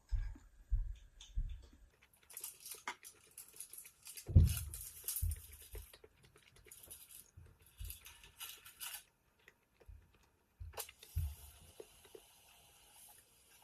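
Household handling sounds: irregular dull knocks and light clinks, like dishes and utensils being moved, with stretches of hiss between them. The loudest knock comes about four seconds in.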